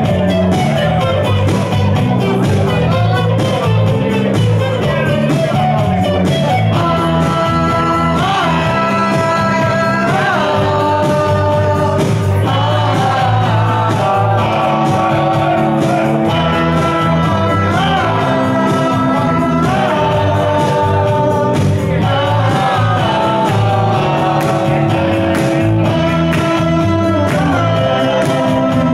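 Live rock song played on electric guitars, with a male lead vocal coming in about a quarter of the way through and singing in phrases.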